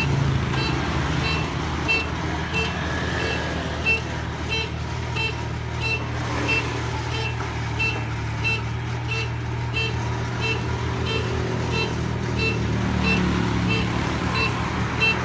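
Kubota combine harvester's diesel engine running steadily while a short electronic warning beep repeats about twice a second, the kind that sounds when the machine is moving, here as it is backed toward the loading ramps.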